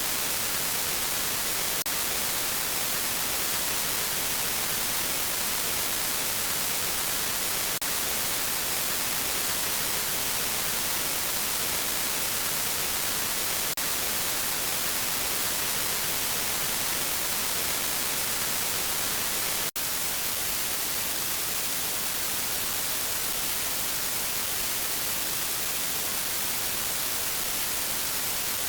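Steady white-noise static hiss, strongest in the high end, with faint clicks about every six seconds and a brief dropout about two-thirds of the way in.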